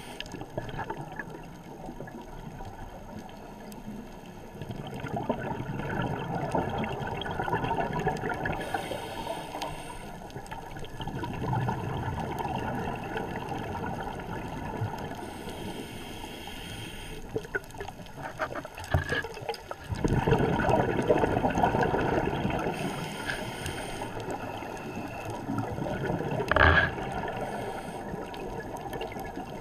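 Muffled underwater sound of a scuba diver breathing through a regulator: exhaled bubbles gurgle in surges every few seconds, with a short hiss on each inhale. There is a single sharp knock near the end.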